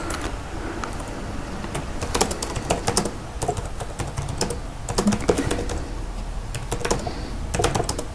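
Typing on a computer keyboard: quick, irregular keystroke clicks, some in short flurries.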